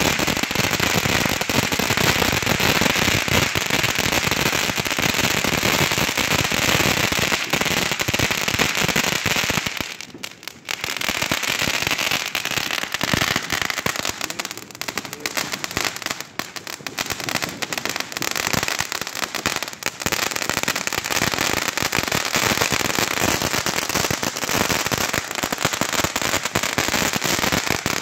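Several ground fountain fireworks burning at once with a loud, dense, continuous crackle and hiss. The crackle drops briefly about ten seconds in, then picks up again.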